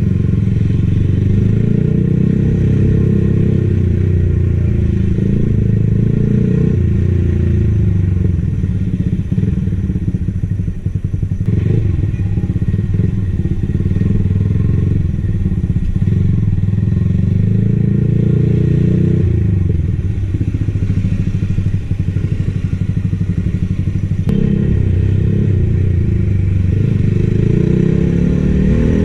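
Yamaha XSR155's single-cylinder engine running under way, its pitch rising and falling with the throttle, easing off about eleven seconds in and revving up near the end.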